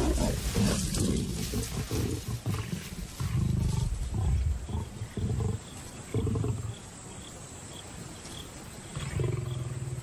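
Lions growling in a run of short, deep bursts at a carcass, loudest at the start and thinning out after about six seconds: a male lion asserting himself over lionesses on their kill.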